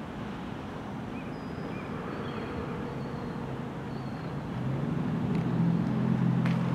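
Norfolk Southern diesel locomotives approaching, a steady low engine rumble that grows louder and more tonal from about two-thirds of the way in as they draw nearer.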